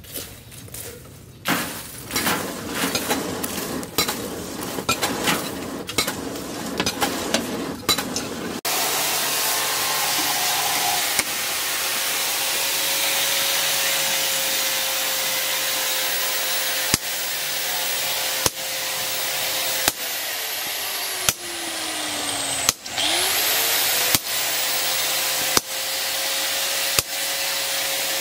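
Quick, irregular strikes for the first several seconds, then a small machine running with a steady hiss and a held whine. The whine's pitch sags and then climbs back about three quarters of the way through, and the run is broken by brief drops every second or so.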